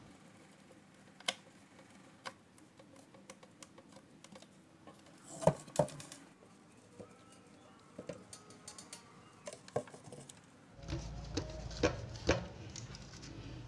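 Hand screwdriver driving small screws through a thin metal amplifier front panel into a wooden frame: scattered light clicks and taps of metal on metal and wood, with a louder double knock about five and a half seconds in. A low rumble of handling joins near the end.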